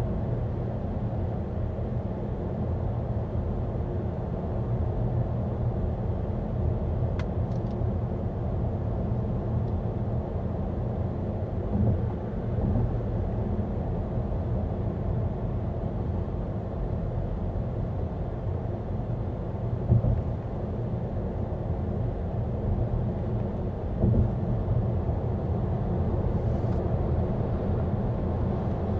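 Volvo EX30 electric car driving, with no engine note: a steady low tyre and road rumble, broken by a few light bumps, the clearest about two-thirds of the way through.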